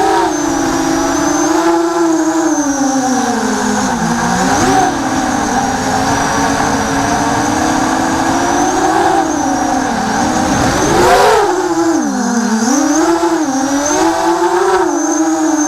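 Four brushless 2204 2300kv motors of a 250-size quadcopter on 4S buzzing as it flies, the whine rising and falling with throttle, with a sharp quick climb and drop about eleven seconds in. Heard through the onboard action camera.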